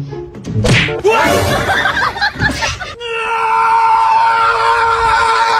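Edited-on comedy soundtrack: a quick jumble of cartoonish sound effects with a slap or two, then one long steady high note held for about two and a half seconds that cuts off near the end.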